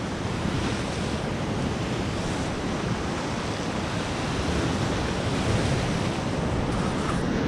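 Sea waves breaking and washing against a rocky shore, a steady rush of surf, with wind buffeting the microphone.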